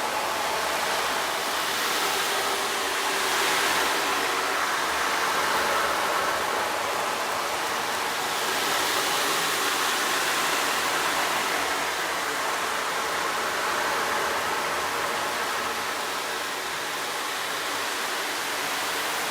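Steady rush of flowing water, a recorded stream soundscape running evenly throughout.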